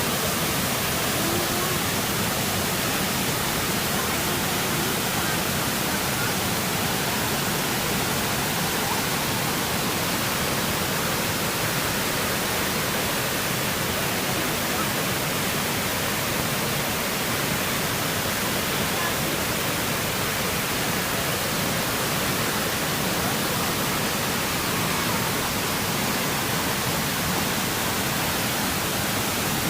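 Waterfall pouring over an old dam: a steady, unbroken rush of falling water.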